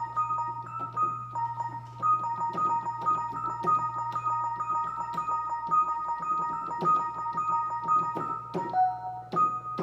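Electric piano music: a simple melody of held notes that alternate between a few pitches, with many short taps throughout.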